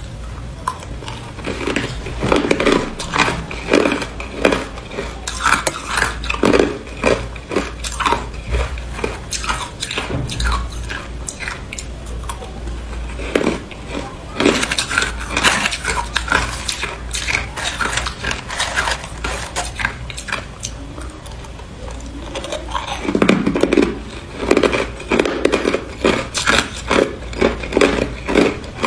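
A person biting and chewing ice: loud, irregular crunches and cracks, several a second, coming in clusters.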